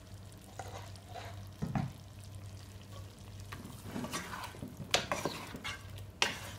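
Wooden spatula stirring rabbit meat and freshly added ground spices in a nonstick pot, with irregular scraping strokes and a few sharp knocks against the pan over the sound of the meat frying.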